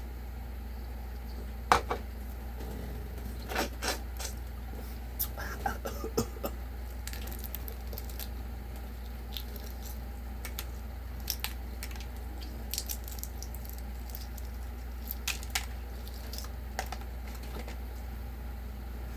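Eating noises from someone eating chicken by hand: scattered sharp clicks and taps, the loudest about two seconds in, with small clusters of ticks, over a steady low hum.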